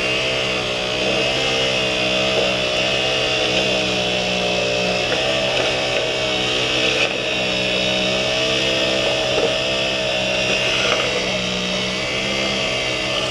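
Diesel engine of a concrete pump truck running steadily at a constant speed while pumping concrete.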